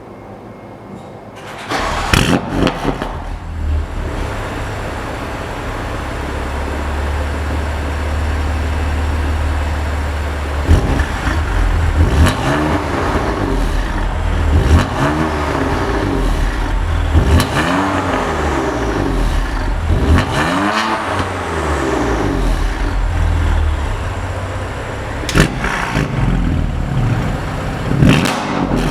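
BMW S55 twin-turbo straight-six running through an aftermarket exhaust: it starts about two seconds in with a loud flare, settles into a steady idle, then is revved repeatedly, each rev rising and falling, with a few sharp cracks on the overrun.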